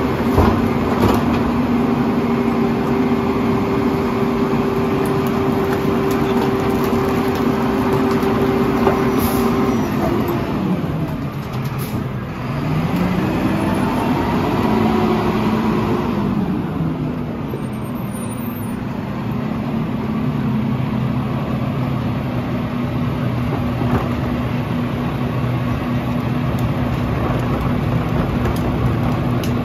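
Mack LR garbage truck engine held at a raised, steady speed while the McNeilus rear-loader packer cycles, then dropping in pitch about ten seconds in, rising and falling again as the truck pulls forward, and settling to a steady lower running sound.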